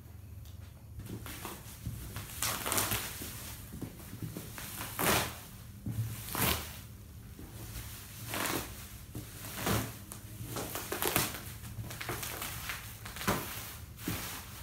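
Bubble wrap crinkling and rustling in irregular bursts, roughly one a second, as it is pulled and peeled off a cardboard TV box.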